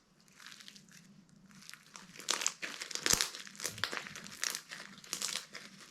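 Homemade slime with styrofoam beads being mixed and kneaded by hand: irregular crackling clicks, louder from about two seconds in.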